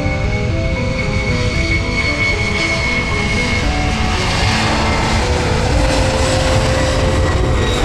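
A loud, steady engine-like rumble with a high whine that fades out about halfway through, mixed with background music playing a stepping melody.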